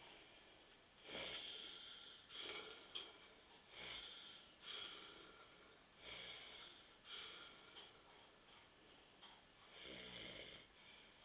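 A sleeping man breathing in soft, wheezy breaths, a quiet stretch between his loud snores, with a breath every second or so. He is sleeping off too many beers.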